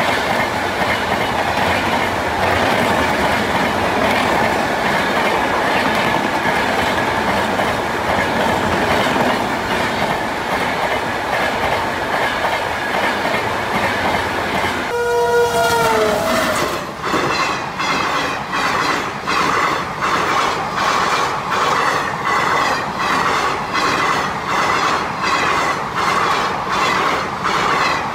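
Indian Railways passenger coaches rolling past at speed with a steady rumble and hiss from the rails. About fifteen seconds in a train horn sounds briefly, falling in pitch. Then a second passing train's wheels clatter over the rail joints in an even rhythm of a little more than one beat a second.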